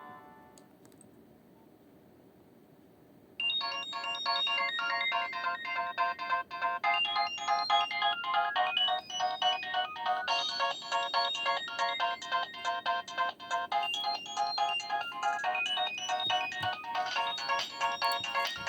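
Nokia 2660 mobile phone ringtone: the previous tone dies away in the first second, and after a short quiet gap a new melody of quick electronic notes, several at once, starts about three and a half seconds in and plays on.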